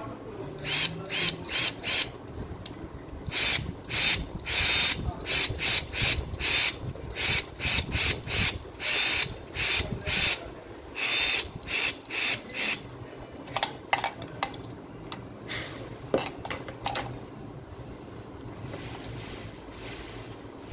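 Bare motor of a Makita HP457D cordless drill, wired to its trigger switch and battery, spinning up in many short bursts with a high whine as it is run on the bench out of its housing. Near the end come a few sharp clicks and knocks.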